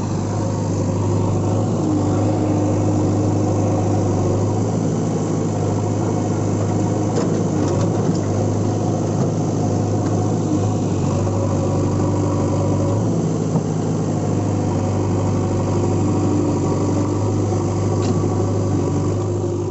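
An engine idling steadily, with a steady low hum; it fades out near the end. It is laid over the scene as the running sound of a toy backhoe loader and dump truck.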